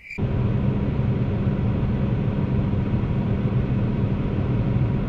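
Case IH 290 tractor's diesel engine running steadily, heard from inside the cab as a low, even drone that cuts in suddenly at the start.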